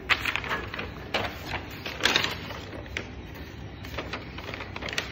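Paper rustling and crinkling in several short bursts as a child handles and flips the pages of an IKEA assembly instruction booklet.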